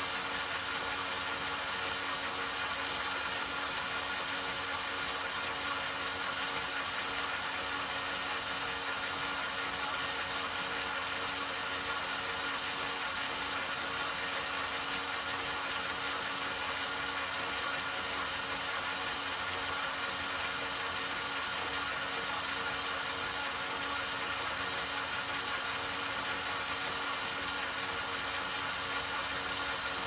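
enMotion automatic paper towel dispenser's motor running continuously: a steady whir holding several even tones over a hiss, with no change in speed or level.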